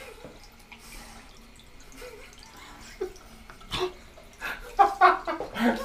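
Water from a bathroom tap trickling into a sink as a person rinses their mouth, with a run of short, sharp spits and splutters near the end.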